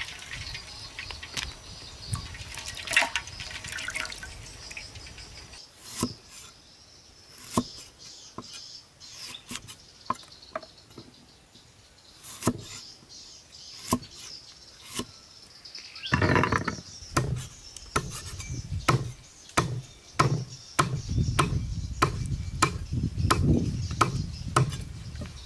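Large knife cutting on a wooden chopping block: scattered sharp taps of the blade on the wood as limes are cut, growing into heavier, denser chopping of eel in the last third.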